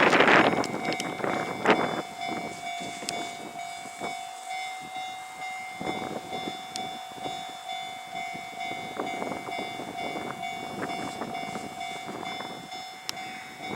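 Japanese railway level-crossing alarm ringing: a steady, evenly repeated electronic bell. A loud rush of wind on the microphone covers the first half-second.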